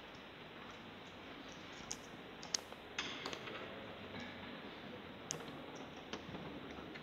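Hushed pause in a church, with a handful of short sharp clicks and faint rustles scattered over quiet room tone.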